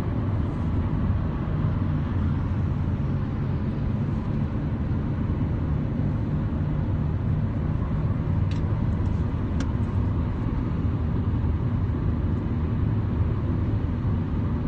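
Steady low rumble of engine and road noise inside a car's cabin, with a couple of faint clicks a little past the middle.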